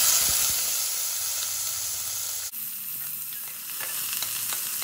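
Chopped onions hitting hot ghee and oil in an aluminium pressure cooker and sizzling loudly. About halfway the sizzle drops quieter, with faint clicks of a metal slotted spoon stirring the onions against the pan.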